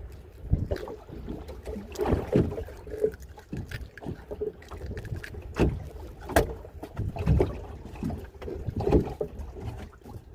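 Irregular knocks and thuds around a small fishing boat on the water, with wind rumbling on the microphone.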